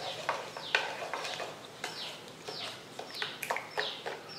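A steel spoon stirring a thin mix of ghee, sugar and water in a bowl. Over it, birds chirp over and over, short falling calls two or three times a second.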